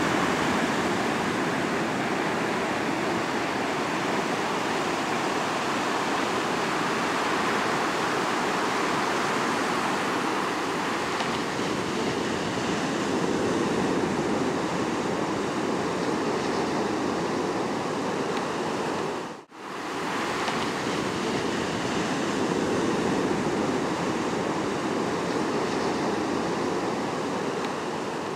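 Ocean surf breaking and washing up the shore: a steady rush of waves, with a brief dropout about two-thirds of the way through.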